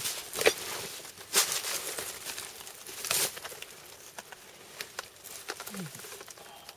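Rustling and crinkling with scattered sharp clicks and a few louder short bursts.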